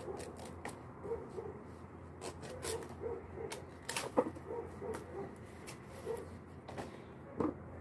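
Fresh ti leaves being split and torn into strips by hand, with a run of short, crisp ripping crackles and one sharper rip about four seconds in.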